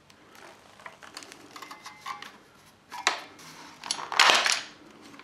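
Handling noise from an A&K M249 Para airsoft light machine gun as its carry handle is swung aside and the lower handguard is pulled off to reach the battery compartment: light plastic and metal clicks, a sharper knock about three seconds in and a longer scraping rasp around four seconds in.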